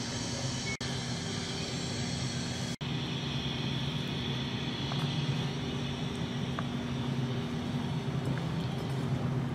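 Steady low mechanical hum with an even hiss, typical of a large hall's ventilation. It drops out for an instant about a second in and again near three seconds, where clips are joined.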